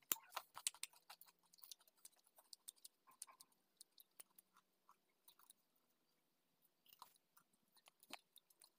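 Faint, scattered clicks and crackles, denser in the first couple of seconds and sparse afterwards, from a small green PVC part being handled in the fingers.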